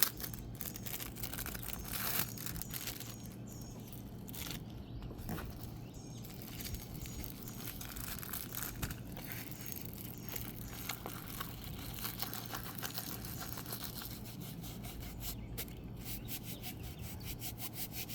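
Rustling, crinkling and rubbing of a diamond painting kit's plastic packaging and rolled canvas being handled and opened, with many small clicks and scrapes.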